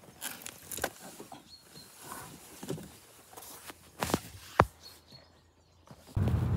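Rustling of clothing and scattered soft knocks and clicks as a person climbs into a car's back seat, with a few sharper knocks about two-thirds through. Near the end it cuts abruptly to louder wind noise on the microphone.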